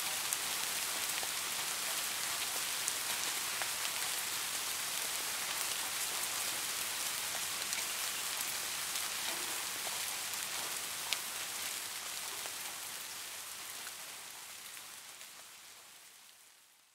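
Steady rain falling, an even hiss with scattered sharper drop ticks, fading out over the last few seconds.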